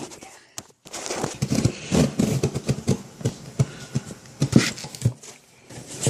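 Irregular clicks and knocks of objects being handled, packed close together for about four seconds after a brief silence.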